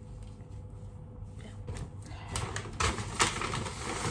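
Handling noise of items being picked up and shown: rustling with scattered clicks, growing louder from about halfway in, with two sharp clicks near the end, over a low steady hum.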